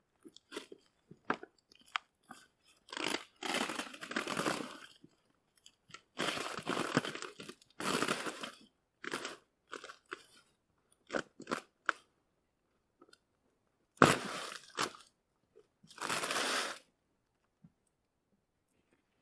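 Old roofing felt (pergamin) crackling and tearing as it is pulled off the wooden roof boards and rolled up, in about five bursts of a second or so. Short clicks and knocks come between the bursts.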